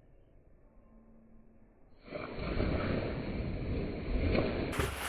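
Splash and rush of water as a swimmer dives head-first into a pool: faint at first, then a loud, noisy rush with a low rumble starts suddenly about two seconds in and lasts nearly three seconds.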